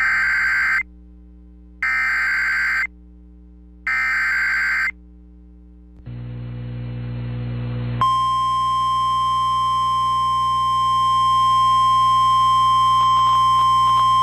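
Emergency Alert System tones over FM radio: three one-second bursts of screechy SAME digital header data, each followed by a short gap. Then comes a brief low hum, and about eight seconds in a single loud steady attention tone starts and holds.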